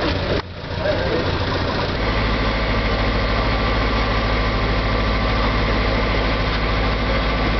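Passenger boat's engine running with a steady low drone. After a brief dip near the start, the hum grows stronger about two seconds in and holds steady.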